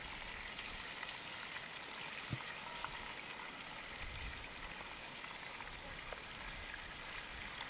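Chicken pieces frying in hot oil in a pot over a wood fire: a steady, even sizzle with a few faint clicks.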